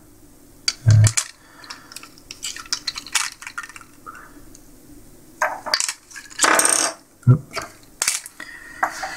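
Light clicks and clinks of small TIG torch back caps, black plastic with brass threads, being handled and set back into a clear plastic blister tray. Near the end there is a louder rustle of plastic packaging being picked up.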